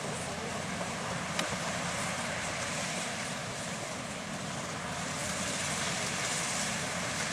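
AGRI-68 rice harvester running steadily as it cuts rice, a continuous engine and machinery noise, with one sharp click about a second and a half in.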